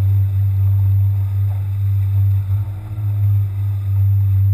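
A boat's outboard motor running at a steady low hum while the boat moves through the water.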